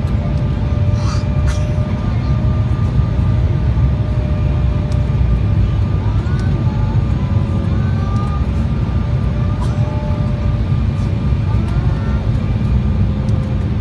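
Airliner cabin noise heard from inside the cabin: a steady low rumble of the engines and airflow, with a faint steady whine over it.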